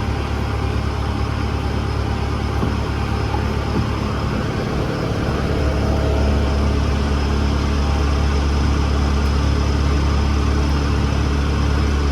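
Ford 6.4 Power Stroke twin-turbo V8 diesel engine idling steadily. About five and a half seconds in, its low hum grows louder and deeper.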